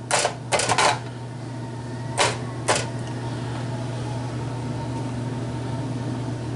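Knife tapping and scraping against a plastic vegetable chopper's cutting grid for about a second, then two sharp clicks a half second apart. A steady low hum runs underneath.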